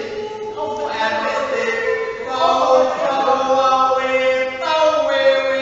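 A man's voice chanting drawn-out, wordless sung tones recited from a text, Dada sound poetry. The notes are held about a second or more each and step to a new pitch between them.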